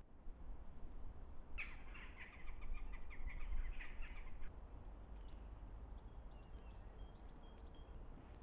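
A bird's rapid chattering call lasting about three seconds, starting a second and a half in, followed a second later by a few faint, thin, high whistled notes, over a low rumble of wind on the microphone.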